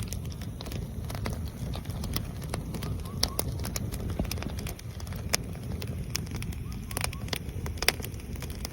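Stacked oak firewood burning: constant crackling with sharp pops, a few of them much louder, over a low steady rumble of the flames.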